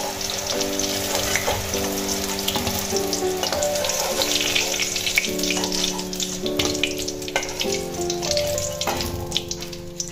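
Hot oil sizzling in a metal kadai as halved pointed gourds fry, with a metal spatula scraping and clicking against the pan as the pieces are lifted out. Soft background music plays over it.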